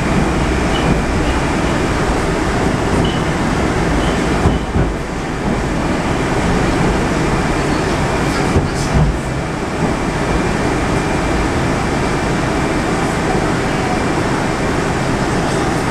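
Steady running noise inside a Moscow metro 81-765.2 car on the move, with a couple of short knocks from the running gear about four and a half and nine seconds in.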